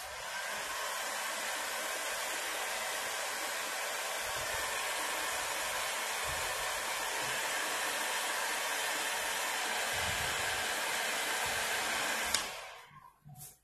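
Handheld heat gun blowing steadily as it pre-dries freshly printed plastisol ink between colours, switched off with a click about twelve seconds in.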